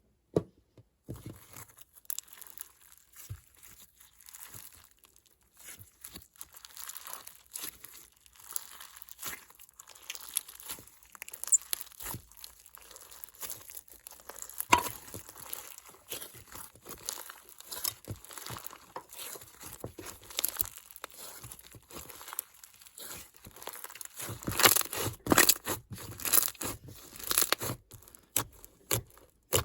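Slime being handled and worked by hand: a dense, irregular run of small crackles and clicks, getting busier and louder near the end.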